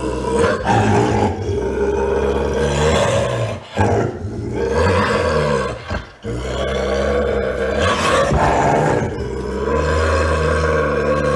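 Bobcat growling in long rough stretches broken by sharper snarls, with short pauses about four and six seconds in.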